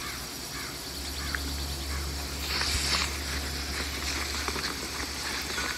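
Outdoor rural ambience: short bird calls over a low steady hum that comes in about a second in.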